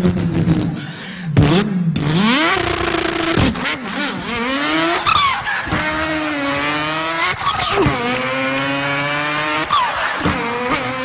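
A man imitating a racing car engine with his voice, accelerating through the gears: the pitch climbs and then drops sharply at each change, several times over.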